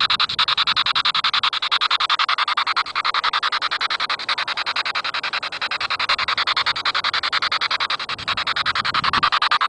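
P-SB7 spirit box sweeping through AM/FM radio stations over its amplified speaker: rapid, evenly chopped bursts of radio static, several a second.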